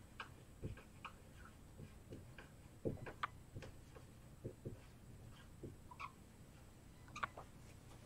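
Dry-erase marker writing on a whiteboard: faint, irregular taps and short scratches as the letters are written, with a couple of slightly louder clicks near the end.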